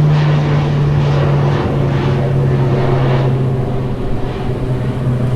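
Propeller airplane flying overhead with a loud, steady engine drone; its pitch drops slightly about a second and a half in.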